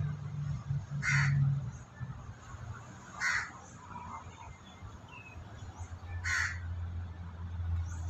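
A crow cawing three times, single short caws about two to three seconds apart, over a low hum.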